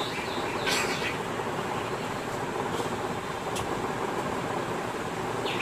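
Steady background noise, such as a running fan or machine hum, with a short high chirp about a second in and a couple of faint ticks.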